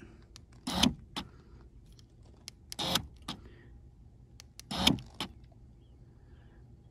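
Central locking of a W203 Mercedes C230 cycling from the key fob: three short actuator clunks about two seconds apart, with lighter clicks between. The newly fitted fuel filler door actuator is working along with it.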